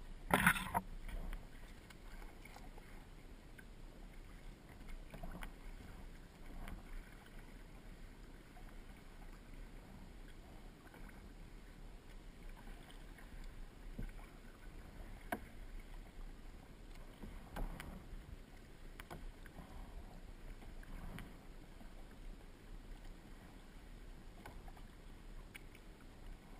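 Kayak paddling: soft, irregular splashes and water sounds from the paddle, with one louder sound about half a second in.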